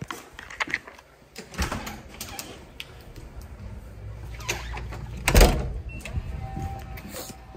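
Handling noise from a handheld camera carried against the body while moving: scattered clicks and knocks with a low rumble, and one loud thump about five and a half seconds in.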